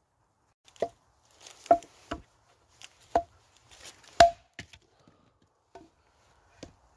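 Hultafors trekking axe chopping thin branches on a wooden chopping block: five sharp chops in about three and a half seconds, each with a short ring, the loudest about four seconds in. A few lighter knocks follow as the wood is handled.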